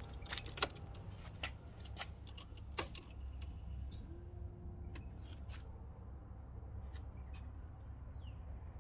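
Car keys jingling and clicking lightly in the ignition over a low steady rumble, with a short low beep about four seconds in as the dashboard warning lights are on.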